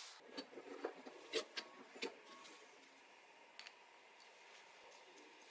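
Light metallic clicks and taps of machined aluminium parts being handled and fitted together by hand: about five in the first two seconds and one more about midway.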